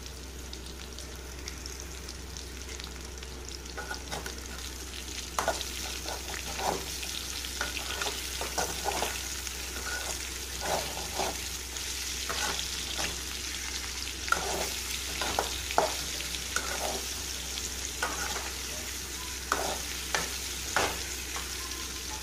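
Raw plantain slices sizzling as they shallow-fry in oil in an aluminium kadai. From about four seconds in, a spatula repeatedly scrapes and taps against the pan as the slices are turned and separated.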